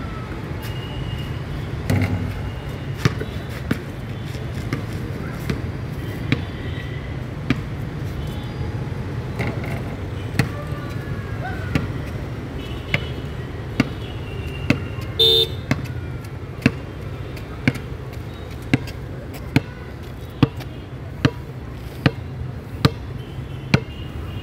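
A basketball bouncing on a hard outdoor court as it is dribbled, one sharp bounce at a time. The bounces are irregular at first, then settle into a steady dribble of about one a second in the second half. A brief horn toot sounds about midway.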